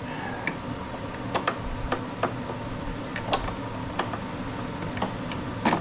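Light, irregular metal clicks and taps, about a dozen, from hand work on a lawn mower's drive cable and its spring as they are hooked into place, with a slightly louder clatter near the end.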